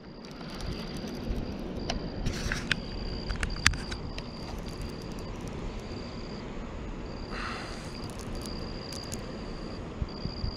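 An insect trilling in repeated short stretches over a steady low rumble of outdoor noise. A few sharp clicks and taps come from a baitcasting reel being handled, about two to four seconds in.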